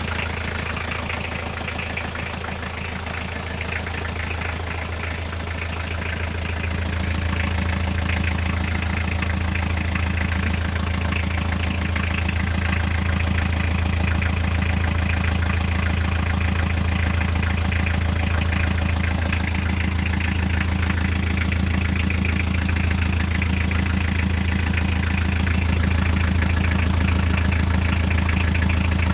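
Toyota C1 car engine idling steadily with a rapid, even knock that the owner cannot place. It gets a little louder about seven seconds in.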